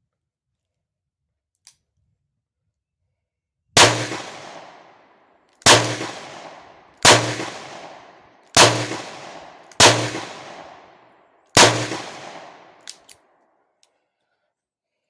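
Six shots from a Taurus 856 .38 Special snub-nose revolver with a 2-inch barrel, emptying the cylinder with Winchester 130-grain Train & Defend rounds. The shots are spaced between one and two seconds apart, each ringing off in a long fading echo, and two small clicks follow the last shot.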